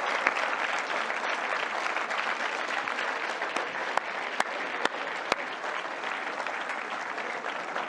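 Large sale-room audience applauding after the hammer falls, a dense steady patter with a few sharper claps standing out; it eases slightly toward the end.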